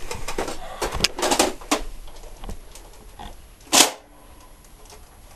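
Nerf foam-dart blaster handled and primed, a run of plastic clicks and rattles, then one short sharp burst of firing a little under four seconds in.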